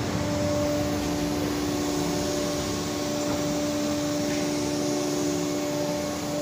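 Vacuum pump (2.2 kW) of a PVC film vacuum membrane press running steadily, a continuous whirring hum with a constant drone. The pump holds the vacuum that draws the PVC film tight over the MDF door panels.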